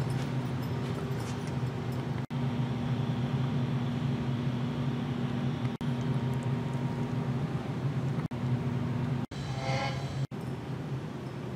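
Steady low mechanical hum of a large hall's ventilation, broken by several abrupt cuts. About nine seconds in, a short higher-pitched sound with several stacked tones lasts about a second.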